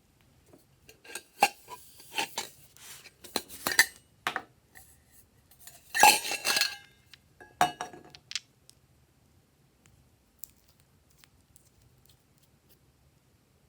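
Hard utensils and containers clinking and clattering, a run of sharp knocks with short ringing over the first eight seconds, the loudest clatter about six seconds in, then only a few faint clicks.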